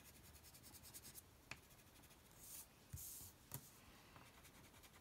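Faint scratch of a wax crayon rubbing on paper in quick back-and-forth colouring strokes. A few light taps and short, scratchier strokes come about halfway through.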